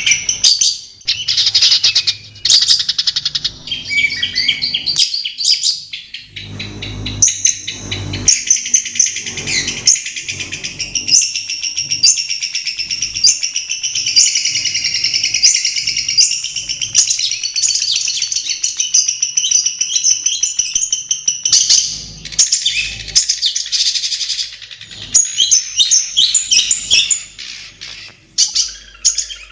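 Long-tailed shrike singing: a long, rapid run of varied chattering and whistled notes with a few short breaks.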